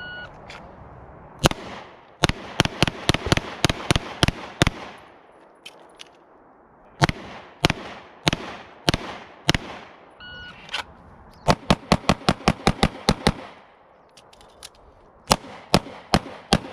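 Gunshots in practice strings, each string opened by a short electronic shot-timer beep. After the first beep comes one shot, then a rapid string of about ten, then six shots paced a little over half a second apart. A second beep about ten seconds in is followed by another rapid string of about ten shots, and a closing string of five.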